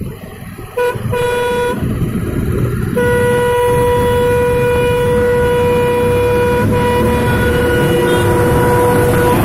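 A vehicle horn sounding over motorcycle engine and wind noise: a short toot and a second toot of under a second, about a second in, then one long steady blast held for about six seconds from about three seconds in.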